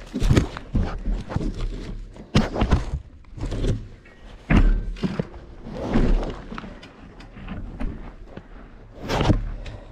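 Mountain bike ridden over a rough trail: irregular clattering and thumps from the bike hitting rocks and roots, over a steady low rumble.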